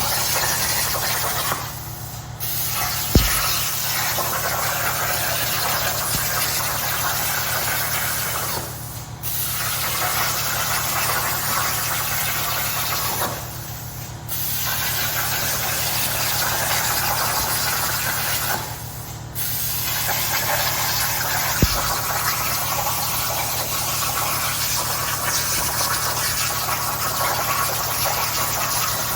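Plasma torch of a Langmuir CNC cutting table cutting metal: a loud steady hiss that drops away briefly four times, over a steady low hum, with two sharp clicks.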